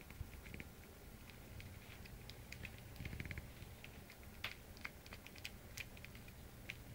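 Faint scattered small clicks and soft rustling as a litter of puppies stirs in fleece bedding, with a quick run of ticks about three seconds in.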